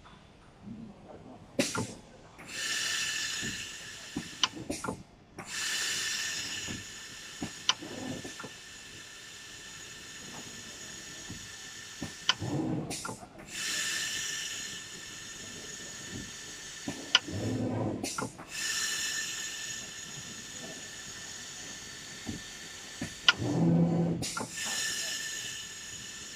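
Richpeace automatic pattern sewing machine making a dry run with no stitching: the frame drive moves in several bursts of a few seconds each, each a high whine with hiss, separated by sharp clicks and a few low knocks.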